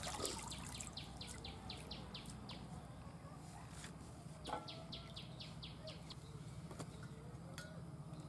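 A small bird singing a rapid trill of repeated falling notes, about five a second, in two runs: one near the start lasting about two seconds and a shorter one after about four and a half seconds. A few faint taps and drips come from wet coriander leaves being lifted from a steel bowl of water and put into a bamboo basket.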